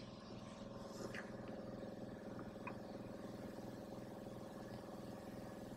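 Quiet room tone: a faint, steady hum, with a few small ticks about one and two and a half seconds in.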